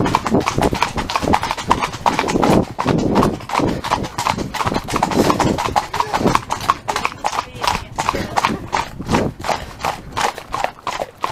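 Hoofbeats of a ridden horse on the move: a quick, uneven run of hoof strikes with no break.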